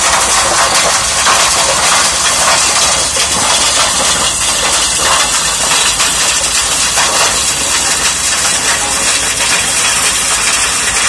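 Tractor-driven flail mower made for grass and stone, shredding dry grass while the tractor engine runs under load. The sound is a loud, steady hiss that does not let up.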